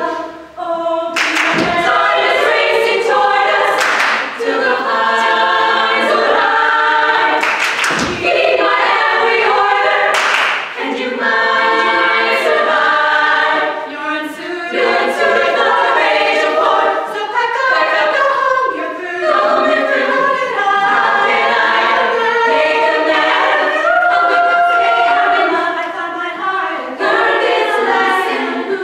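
All-female a cappella group singing in close harmony without instruments, a lead voice over the backing voices. A few sharp percussive hits cut through in the first ten seconds or so.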